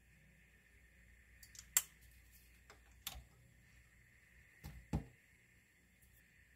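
A few sharp clicks and knocks from handling oil bottles over the pan: the strongest about two seconds in, another about three seconds in, and a heavier double knock about five seconds in, over a faint steady high whine.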